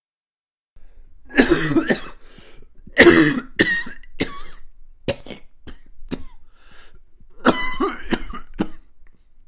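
A person coughing in several bouts, the loudest around one and a half and three seconds in, with another fit near the end.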